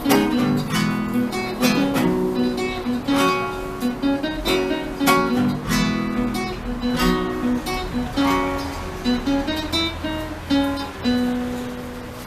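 Acoustic guitar strumming chords in a steady rhythm, easing off near the end.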